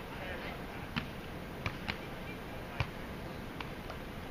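About six short, sharp knocks or clicks at irregular intervals over a steady background hiss.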